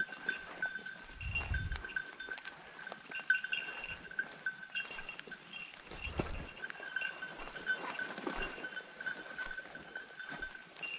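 A hunting dog's bell ringing continuously at one steady pitch, jingling without a break: the dog is on the move, not on point. Dry leaves crackle, and there are two low thumps about one and a half and six seconds in.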